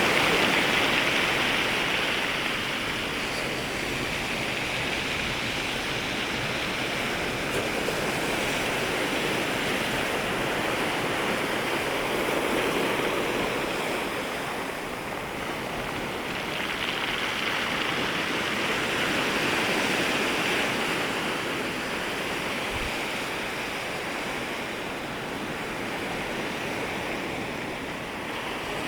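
Sea waves breaking and washing along the shoreline, a continuous rush of surf that swells and eases every several seconds.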